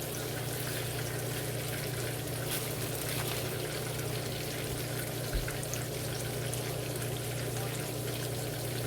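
Milkfish frying in a pan of oil, a steady sizzle with small crackles over a low steady hum, and one soft knock about halfway through.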